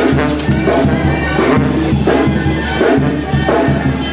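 Music with a steady drum beat and pitched instruments.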